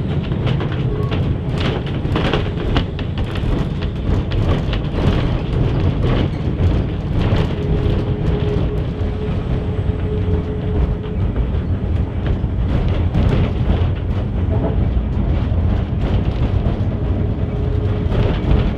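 Manx Electric Railway Winter Saloon No.21, an electric tramcar, running along the line as heard inside its wooden saloon: a steady rumble of wheels and traction motors, with frequent knocks from the track and a whine that comes and goes.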